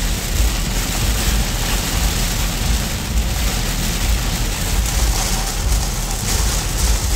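Heavy rain drumming on a car's windshield and body, heard from inside the cabin while driving, over a steady low road rumble.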